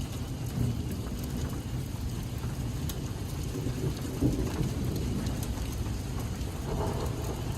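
Rain with big drops and some small hail falling steadily, a few sharp ticks standing out from the even patter.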